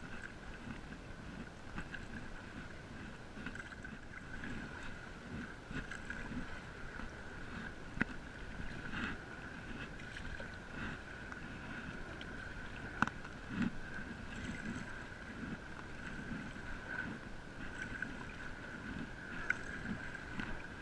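Stand-up paddle board paddle strokes pulling through calm water, with a steady faint high hum underneath and a few sharp clicks.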